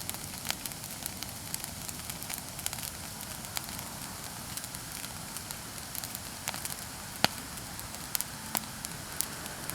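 Bonfire of cut persimmon tree wood crackling, with irregular sharp pops; the loudest pop comes about seven seconds in. A low steady rumble runs underneath.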